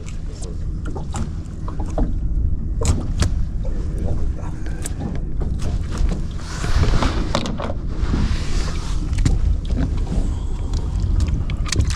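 Fishing boat's engine running with a steady low hum, over which come scattered sharp knocks and clatter. A rushing noise rises for a few seconds in the middle.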